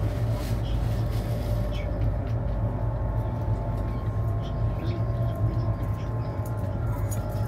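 Cabin noise inside a CR400BF Fuxing high-speed train running at speed: a steady low rumble with faint steady whining tones above it and the odd faint tick.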